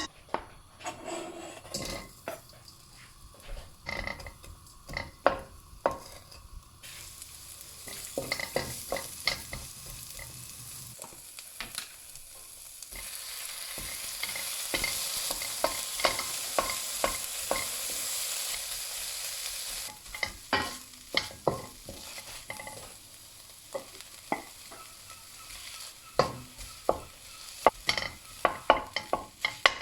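Egg frying for a tornado omelette: a steady sizzle in a hot oiled pan with many quick clicks and taps of a utensil against the pan. The sizzle starts about a quarter of the way in, grows louder around the middle and drops back about two-thirds through, leaving mostly tapping.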